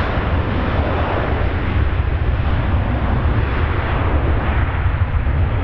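Boeing 737-800's twin CFM56-7B turbofan engines at takeoff thrust: a steady jet roar with a deep rumble as the airliner accelerates down the runway on its takeoff roll.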